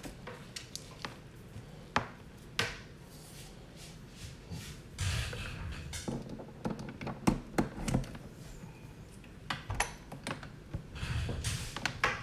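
Hands handling multimeter test leads and a plug while hooking them up to a Variac: a series of sharp clicks, taps and knocks, with stretches of rustling about five seconds in and near the end.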